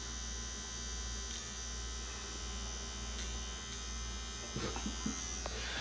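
A steady electrical hum and buzz with a faint high-pitched whine over it, and a few faint soft noises near the end.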